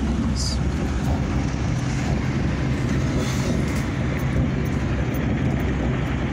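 Steady engine and road noise inside the cab of a moving small truck, a low even drone.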